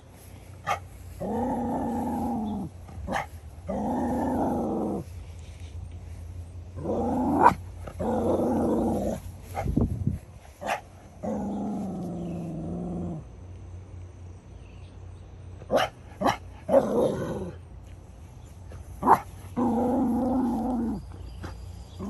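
Beagle baying: about five long, drawn-out bays, each one and a half to two seconds, broken by short sharp barks. She is agitated at big birds near the house.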